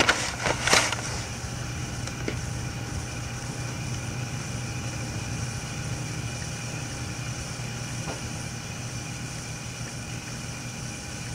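Steady hiss and hum from an old home tape recording once the singing has stopped, with a few sharp clicks and knocks in the first second.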